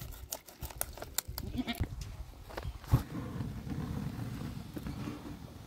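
Kitchen knife cutting through raw chicken pieces in a steel basin, a quick run of short clicks, followed about three seconds in by one sharp louder click and then a steady low rushing sound.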